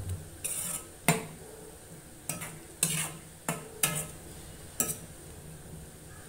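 A perforated spatula stirring thick gravy in a kadai, scraping and knocking against the pan about seven times in the first five seconds, then stopping.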